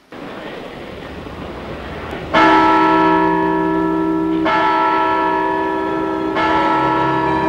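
Tower clock bell striking the hour, three slow strokes about two seconds apart, each ringing on with many overlapping tones; the first comes a little over two seconds in. Before it, a wash of noise swells gradually.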